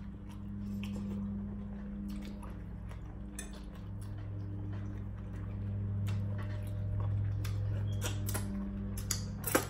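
Scattered small clicks and cracks of king crab legs being picked apart by hand, with chewing, and one sharp click near the end, over a steady low hum.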